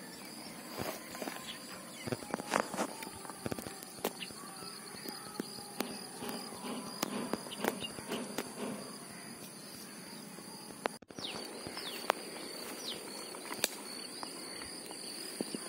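Faint outdoor lakeside ambience: scattered small splashes and water movement around someone wading, over a steady high insect drone.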